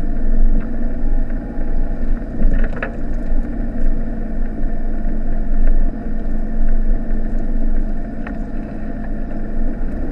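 Mitsubishi Delica's 2.8-litre four-cylinder turbodiesel engine running steadily as the van drives over a rough dirt track, heard from inside the cab. A couple of brief knocks come through, one a little before 3 seconds in and one near 8 seconds.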